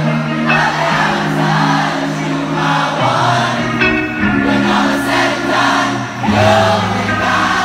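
Live pop music: a female lead singer over sustained keyboard chords and bass, the chords changing every second or two and the bass stepping lower twice.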